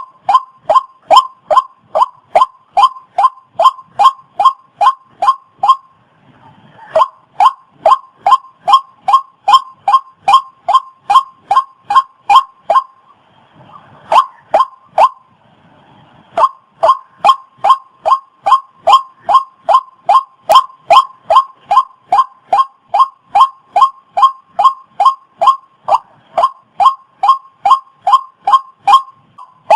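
Waterhen calling: a short, pitched call repeated about three times a second in a long, very regular series, breaking off twice, around six and thirteen seconds in.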